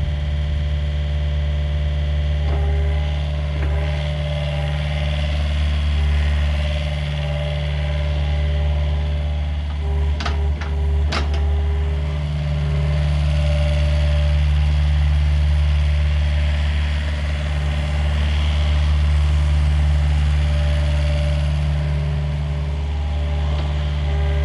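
John Deere 50G mini excavator's diesel engine running steadily, swelling slightly in level for a while midway, with a few sharp clicks about ten seconds in.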